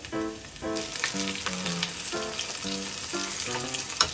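Panko-breaded fish fillets frying in hot oil in a frying pan, a steady sizzle with dense crackling that grows louder about a second in. A sharp tap sounds near the end.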